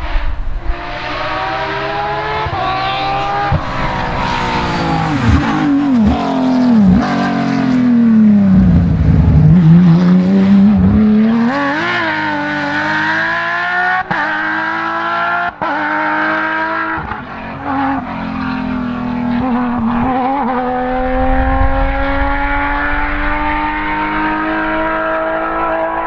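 Porsche 997 GT3 rally car's flat-six engine at full throttle, revving hard through the gears. The pitch dips sharply several times and is lowest and loudest around nine seconds in, then climbs again. Later it holds a long, steadily rising pitch as the car accelerates away.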